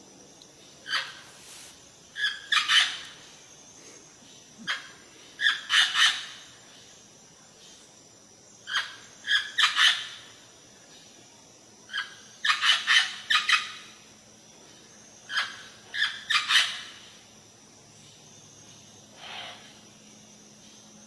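Birds tweeting in short bursts of quick, high chirps, a cluster every two to four seconds with quiet gaps between.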